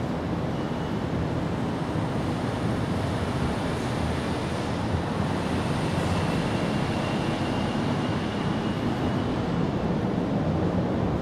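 Steady outdoor background rumble with no distinct events, and a faint thin high tone through the middle.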